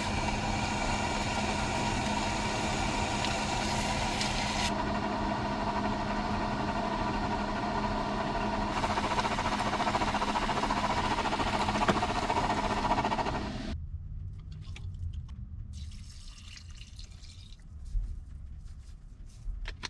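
Chicken breast sizzling in a frying pan: a steady hiss with a low hum beneath that cuts off abruptly about two-thirds of the way through. After it come quieter scattered knocks and clinks of handling, with one thump near the end.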